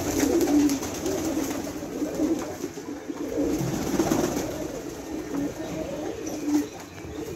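A flock of fancy pigeons cooing, many overlapping coos going on together without a break.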